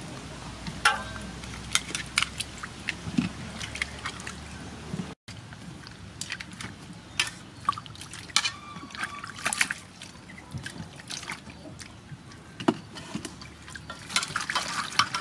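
Water sloshing, splashing and dripping in an aluminium basin as hands wash a peeled green papaya and water spinach, with many short splashes and drips. The splashes are busiest near the end.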